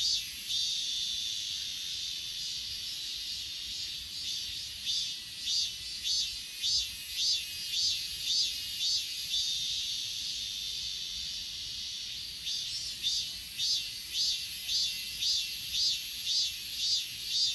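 Grass insects stridulating: a steady high-pitched trill over a chorus of rhythmic chirps, about two a second, that at times run together into a continuous buzz.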